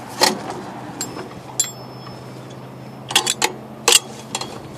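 Scattered sharp metallic clicks and clinks, with a quick run of several about three seconds in and one that rings briefly, over a steady low hum.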